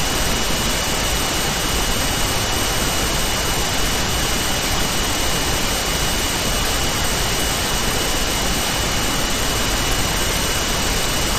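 Steady hiss of recording background noise, with a thin, steady high-pitched whine running through it.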